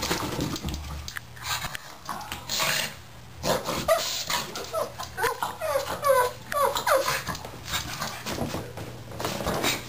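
Pug whining and yipping during play, a quick run of short high whines in the middle, among scuffling and knocking sounds of the rough-and-tumble.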